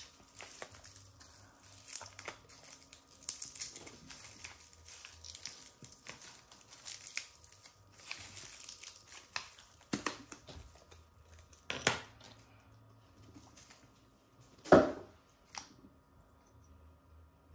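Clear plastic packaging crinkling and tearing as it is pulled off a dual-ended nail liner brush, with scattered small clicks. The crinkling is densest in the first ten seconds, and there is one loud knock about fifteen seconds in.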